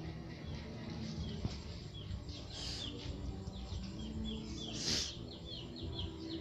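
Young chicks peeping steadily, many short falling cheeps overlapping one another, with two brief rustling noises in the middle.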